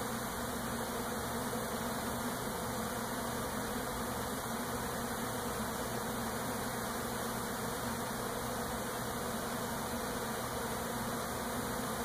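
A swarm of honey bees buzzing steadily around a hive as the swarm moves in and settles on it.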